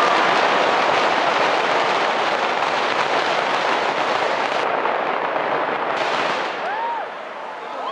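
Fireworks and firecrackers packed into a Las Fallas falla monument going off in a dense, continuous crackle, which dies away near the end, with a short whistle just before it fades.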